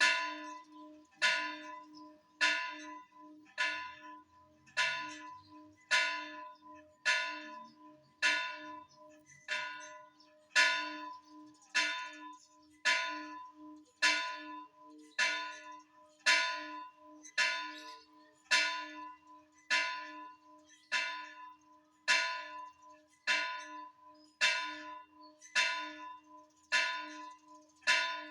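A church bell tolling: struck on the same note about once every 1.2 seconds, with each strike ringing on under the next in a steady, slightly pulsing hum.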